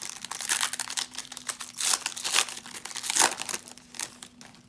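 Foil wrapper of an Optic baseball card pack crinkling as it is torn open and the cards are slid out, a dense crackle that dies down near the end.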